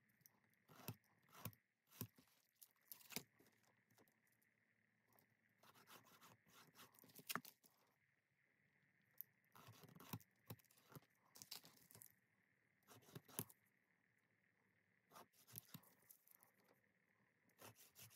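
Faint hand work on leather: short, sharp scraping and cutting strokes in irregular clusters, with pauses of a second or two between groups.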